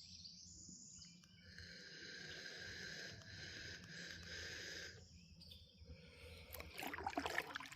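Faint outdoor creek ambience with a steady high-pitched buzz that rises about a second and a half in and fades near the five-second mark, followed by a few soft clicks near the end.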